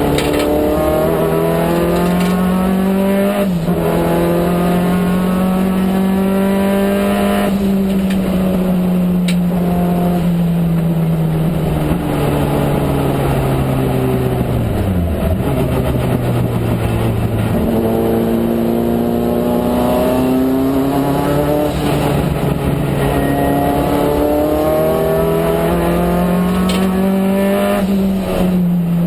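Turbocharged Peugeot 205 GTi race car engine heard from inside the cabin, pulling hard on track. The revs climb steadily with short drops at gear changes, sink to a low point about halfway through, then climb through the gears again.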